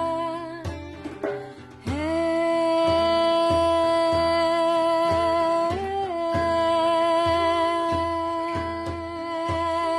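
Music rehearsal: a long held melodic note over a steady low drum beat of about two strokes a second, the note briefly rising in pitch about six seconds in.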